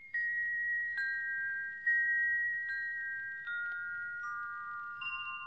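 Chime-like bell tones opening a devotional song: single notes struck about once a second, each ringing on, forming a slow run that mostly steps down in pitch.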